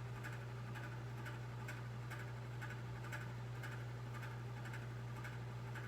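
Room tone: a steady low hum with faint, regular ticking running through it.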